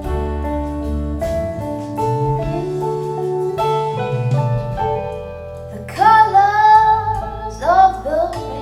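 Folk song played through Klipsch The Nines powered speakers: plucked-string accompaniment over a steady bass, with a singing voice coming in about six seconds in for two short phrases.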